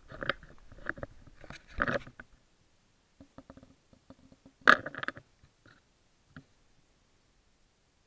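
A cat bumping and rubbing against a small action camera on the ground, making irregular knocks and scraping right at the microphone, with one sharp knock a little before five seconds.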